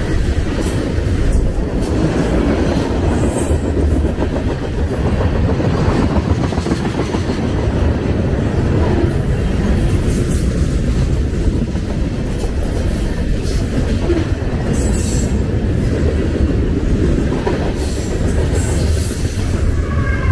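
Norfolk Southern freight train rolling past close by, its tank cars, boxcars and covered hoppers making a steady low rumble with a continuous rapid clatter of steel wheels on the rails.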